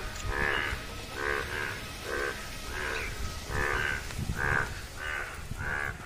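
A chorus of frogs croaking, overlapping calls coming about twice a second.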